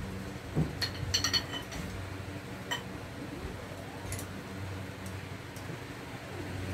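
Small hand tools clinking on the metal of an open engine block and its crankshaft during a rebuild: a quick cluster of light clinks about a second in and a couple more later, over a steady low hum.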